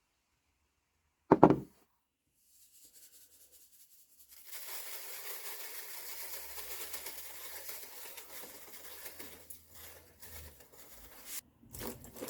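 One sharp knock, then water running from a tap in a steady rush that stops briefly near the end and starts again.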